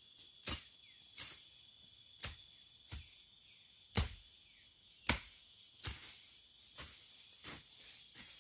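Hoe blade chopping into the soil, about ten strikes at roughly one a second, as the ground is broken up for planting corn.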